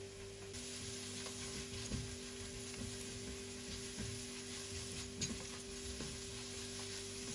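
Chopped onion, garlic and ginger frying with whole spices in oil in a pot, sizzling steadily as a silicone spatula stirs them, with a few light scrapes and taps of the spatula on the pot. The sizzle grows louder about half a second in.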